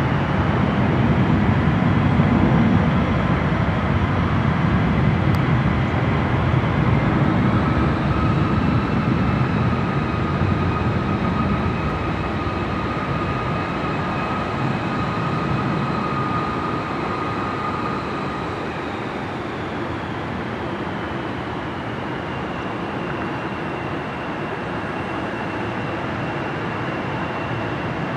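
Rear-mounted turbofan engines of a Bombardier CRJ regional jet running as it rolls out and taxis after landing: a low rumble that eases after the first dozen seconds, under steady high engine whines, one rising in pitch about a third of the way through and another falling about two-thirds through.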